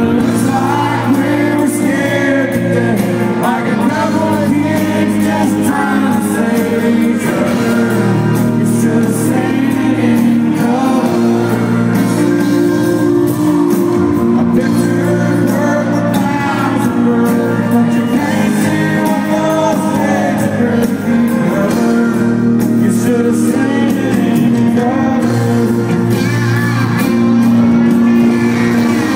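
Live country band performing a slow song: a man singing lead over acoustic guitar, electric guitar and drums, heard from the audience with the echo of a large hall.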